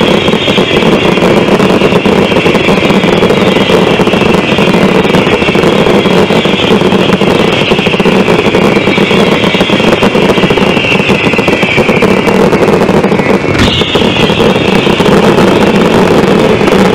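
A dense barrage of Zena fireworks, with ground fountains spraying and aerial shots going off together, blending into a loud, continuous roar in which no single bang stands out. One sharp crack comes about 13 seconds in.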